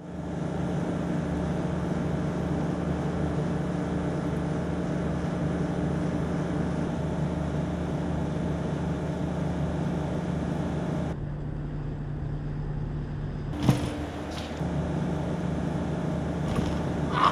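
Steady low machine hum made of several even tones, with one sharp knock about fourteen seconds in.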